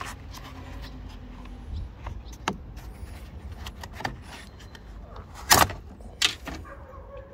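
Scattered clicks and knocks of the convertible top's rear-window insert and frame being worked loose by hand, with two sharper knocks about five and a half and six seconds in.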